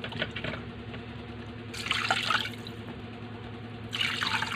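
Water poured from a plastic dipper into a metal pot of raw pork bones, splashing in two bursts, one about two seconds in and one near the end, over a steady low hum.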